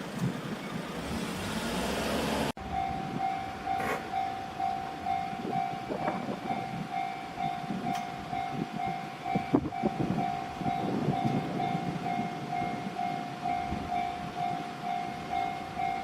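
A rising rush of passing-vehicle noise, then a cut about two and a half seconds in. After it, a Japanese level crossing's electronic warning bell rings a steady pulsing tone at about two beats a second, over a low rumble.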